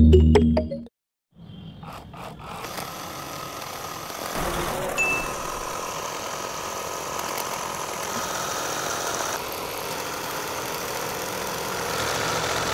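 Background music cuts off about a second in. Then the small electric motor of a model tractor runs with a steady whir, driving a belt-driven miniature flour mill, and the whir gets a little louder about four seconds in.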